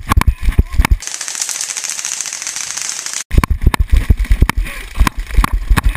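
Airsoft guns firing on full auto: about a second in, a fast, even rattle runs for about two seconds. Before and after it come irregular heavy thuds from a camera carried at a run.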